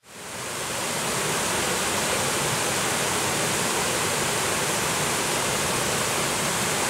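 River water pouring over a weir in full spate, a steady even rushing of white water. It fades up in the first half second.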